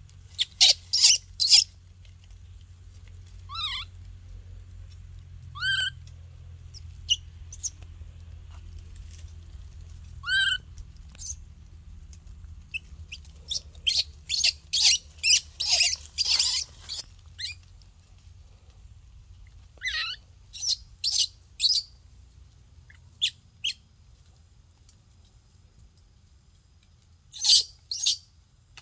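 Baby monkey squealing in short, high-pitched calls, some of them rising squeaks, coming in clusters with the busiest run around the middle and a last pair near the end.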